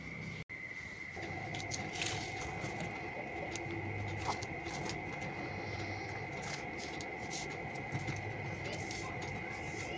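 Foil-backed origami paper crinkling and rustling as hands handle and smooth it, in short irregular crackles. A steady high-pitched tone runs underneath throughout.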